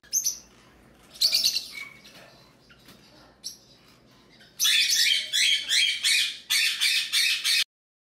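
Small parrots in an aviary cage calling: a short chirp, a few high calls about a second in, then from about halfway a rapid run of loud, high-pitched squawking chirps that cuts off suddenly near the end.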